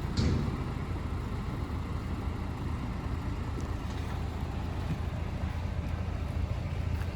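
Mercedes-Benz O307 bus under way, heard inside the cabin: a steady low diesel rumble with road noise and a few faint rattles.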